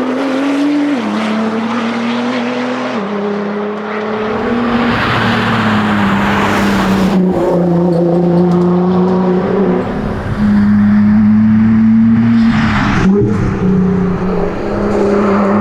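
Nissan R35 GT-R's twin-turbo V6 running hard at speed. Its pitch climbs, then drops with gear changes about a second and three seconds in, and holds fairly steady after that, over a rush of tyre and road noise.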